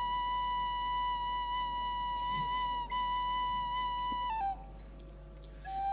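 Minangkabau bamboo flute holding one long steady note, briefly broken about three seconds in. It then steps down in pitch and fades about four and a half seconds in, and a new note enters near the end.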